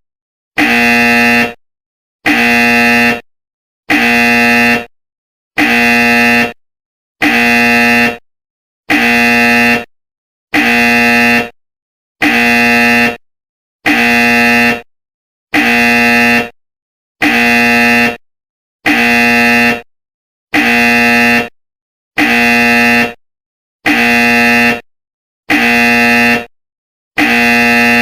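Game-show wrong-answer buzzer: a harsh, steady, low-pitched buzz about a second long, repeated over and over with short silences between, about every second and three quarters.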